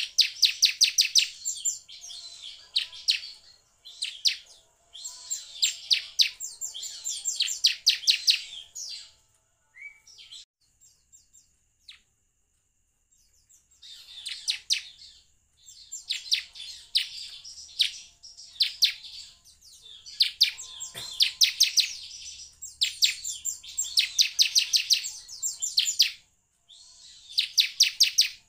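Bar-winged prinia (ciblek) singing in bursts of fast, rapidly repeated high notes, each burst a second or two long. The song pauses for a few seconds about ten seconds in, then resumes.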